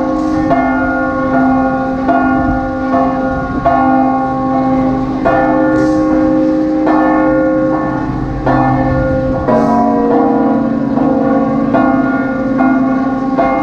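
Large church bells pealing: several bells struck one after another, a stroke roughly every half second to a second, each ringing on under the next.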